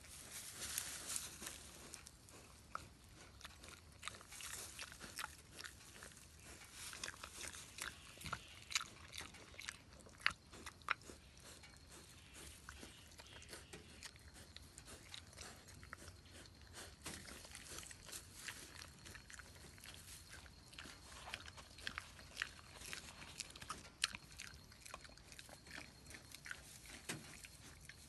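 Piglet chewing banana from a hand: a long run of faint, irregular clicks from its mouth.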